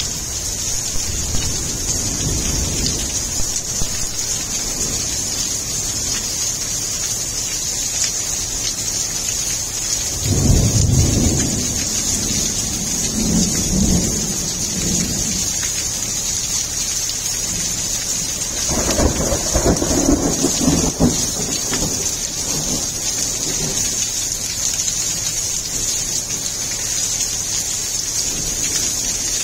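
Heavy monsoon rain falling steadily on gravel, stone pavers and shrubs, with a continuous hiss. Two long rolls of thunder rumble under it, one starting about ten seconds in and the other just before twenty seconds.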